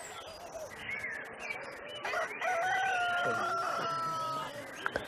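A rooster crowing once: a long drawn-out call starting about two seconds in, held for about two seconds and sinking slightly in pitch before it stops.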